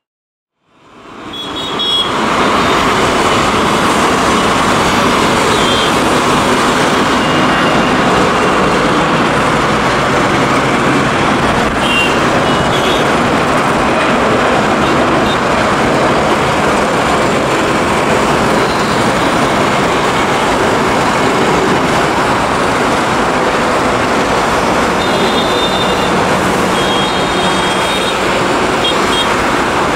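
Jet engines of an Air India Airbus A320-family airliner climbing out after takeoff: a steady, loud engine noise that fades in over the first two seconds. Short, high horn toots from road traffic break in a few times, most near the end.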